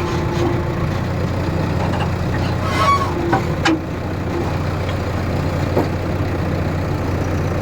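JCB excavator's engine running steadily, with a few short knocks and clanks in the middle.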